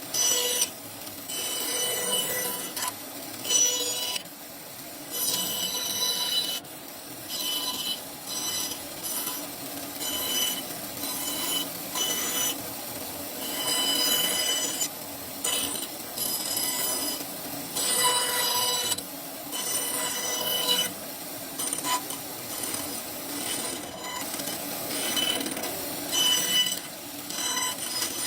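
Woodworking tools scraping and cutting wood in repeated strokes a second or two long, many of them with a high-pitched squeal that rings through the stroke.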